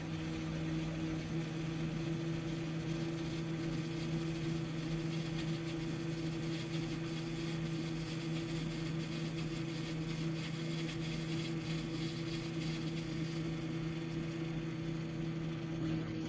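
Metal lathe running at a steady speed, its motor and spinning chuck giving a constant hum.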